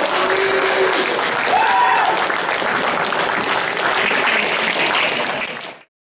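Audience applauding, a dense patter of many hands clapping with a brief shout or two in it; it cuts off abruptly near the end.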